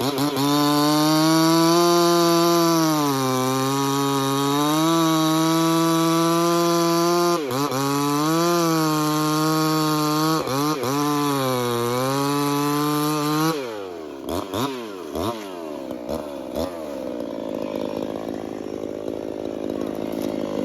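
Husqvarna 345 two-stroke chainsaw with a dual-port muffler running at full throttle in Douglas fir, its pitch dipping again and again as the chain loads in the cut. About 13 seconds in it drops off the throttle, blips a few times and settles to idle.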